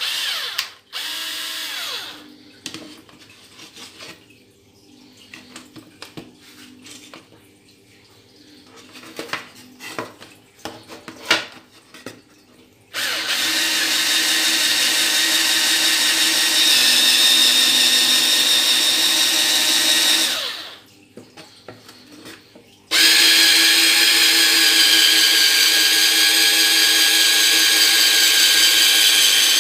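Black+Decker 7.2V cordless drill driver. It starts with two short bursts, then there is a stretch of light clicks and knocks from handling. Then it bores into a thin wooden strip in two long steady runs of about seven seconds each, at its single fixed speed, with a short pause between them.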